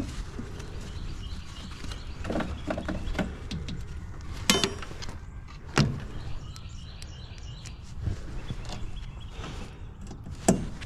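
Scattered sharp clicks and knocks of hands and tools working on equipment, including a quick run of rapid clicks about four and a half seconds in and a sharp knock a little after, over a steady low rumble.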